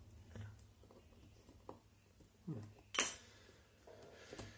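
Small clicks and knocks of hand tools and RC car parts being handled on a workbench, with one sharp, loud clack about three seconds in.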